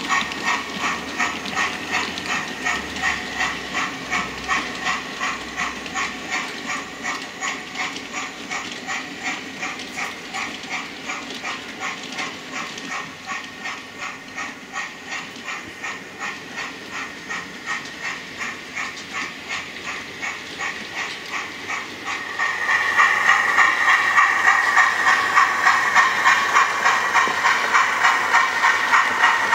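Model steam locomotive running with its sound unit chuffing in a steady, even rhythm with a hiss. The chuffing becomes louder about three-quarters of the way through.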